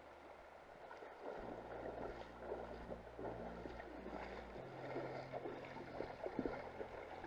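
Irregular water splashing in a shallow river as a hooked salmon thrashes at the surface and the angler wades after it, over the running river. The splashes start about a second in and grow busier toward the end.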